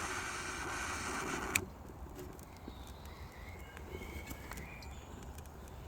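Butane jet torch lighter hissing steadily with its flame locked on, then shut off with a sharp click about one and a half seconds in. Faint bird chirps follow.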